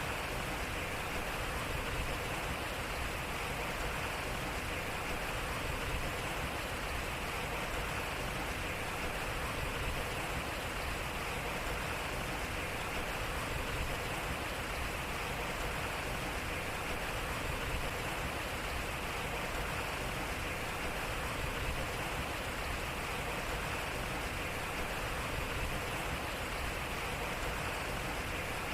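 Water flowing and splashing steadily at a turning wooden waterwheel, a gentle, even rush with no distinct knocks. It is a four-second recording repeated over and over.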